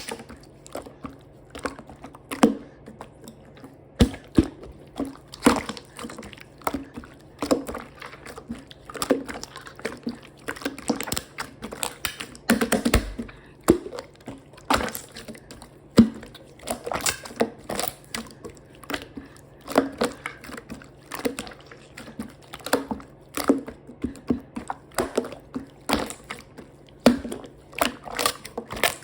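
Slime being squeezed, stretched and pressed by hand, making irregular sticky clicks and small pops, with a denser run of crackles about halfway through.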